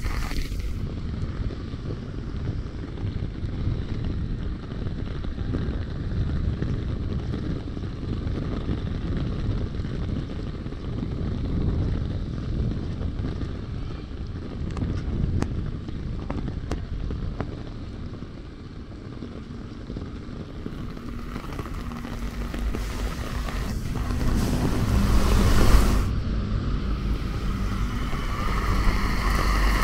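Heavy rain with wind buffeting the microphone and the hiss of traffic on the wet street. A bus passes close by, growing louder to a peak about 26 seconds in.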